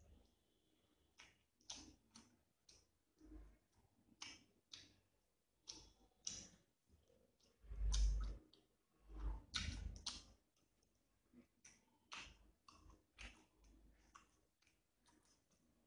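Close-up mouth sounds of eating by hand: irregular wet clicks and smacks of chewing rice and fried fish, with a couple of louder low bumps around the middle.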